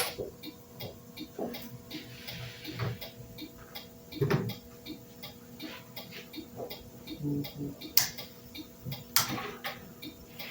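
Turn-signal flasher relay on a wiring practice board clicking with a steady, even tick, with a few louder knocks in between.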